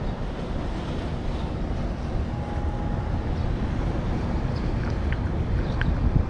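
Wind buffeting an action camera's microphone, a steady low rumble, with a few faint small clicks near the end.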